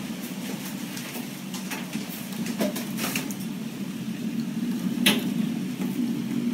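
Steady low rumble of storm wind during a tornado, with scattered sharp ticks and knocks against the window and one louder knock about five seconds in.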